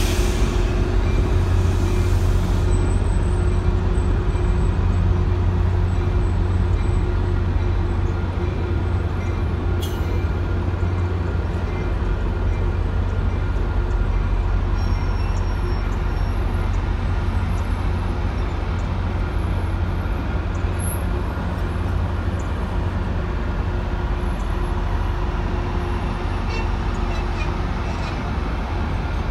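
Diesel train running with a steady low engine drone, gradually easing off, with a brief click about ten seconds in.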